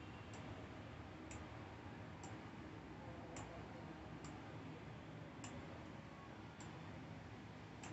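Faint computer mouse clicks, about one a second at slightly uneven spacing, as buttons are selected and moved in a GUI designer, over a low steady room hum.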